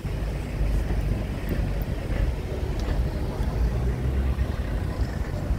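Tourist road train running through town streets: a steady low engine and road rumble.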